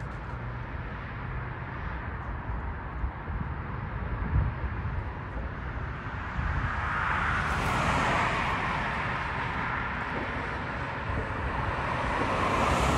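Road traffic: the noise of vehicles passing swells and fades about seven to nine seconds in and again near the end, over a steady low rumble.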